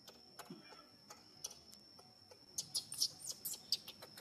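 A steady high-pitched insect drone, with short sharp high clicks and squeaks scattered through it and a quick flurry of them about two-thirds of the way in.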